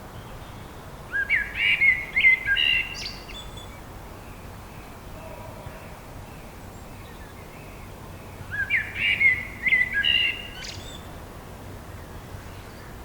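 A songbird sings a quick chirping, warbled phrase of about two seconds, twice, about seven seconds apart, over a steady forest background hiss.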